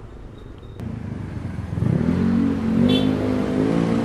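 A motor vehicle engine that gets louder about two seconds in and keeps running with a wavering pitch. A brief high chirp comes just before the end.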